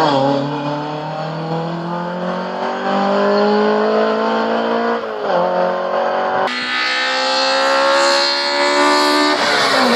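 Race car engine under hard acceleration in a hill climb, its pitch rising steadily through a gear. It shifts up about five seconds in, pulls again, and the revs fall away near the end.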